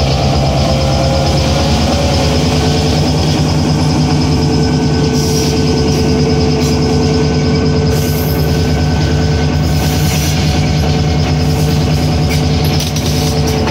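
EMD GP7 diesel-electric locomotive's two-stroke V16 engine pulling a heavy train, a loud, steady drone with rolling-train noise underneath.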